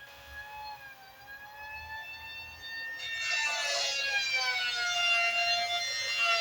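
Electric hand planer's motor whining, its pitch wavering and sagging gently. It grows louder about three seconds in.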